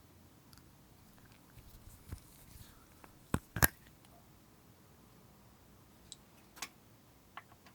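Slime being worked by hand, giving a few scattered sharp clicks and pops, the loudest a close pair about three and a half seconds in, with quiet between.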